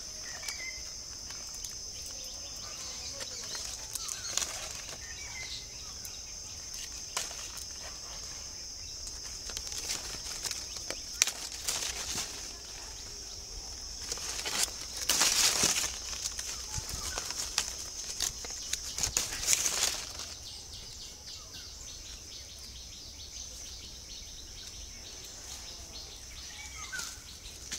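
Mango tree leaves and branches rustling, with sharp clicks, as raw green mangoes are picked by hand; two louder bursts of rustling come about halfway through. A steady high-pitched insect drone runs underneath.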